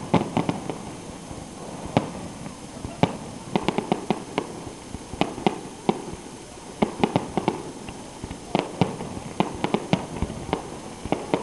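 Fireworks display: aerial shells going off in quick succession, many sharp bangs coming in uneven clusters, some close together like crackling.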